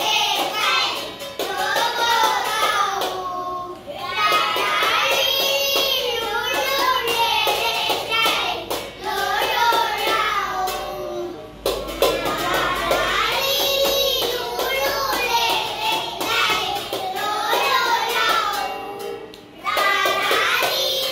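A group of young children singing the Tamil consonant-vowel letter series together as a song, one syllable after another, with short breaks between lines.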